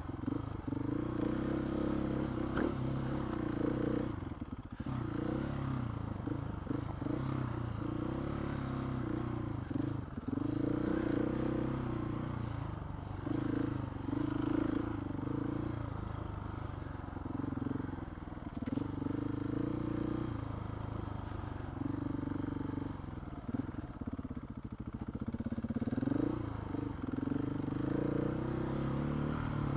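Motorcycle engine running under way, its note swelling and dropping every couple of seconds as the throttle opens and closes.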